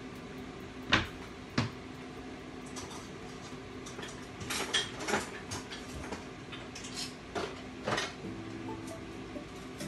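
Scattered sharp clinks and knocks of metal kitchen utensils and dishes, a few single ones and a quick cluster about halfway through, over a steady low hum.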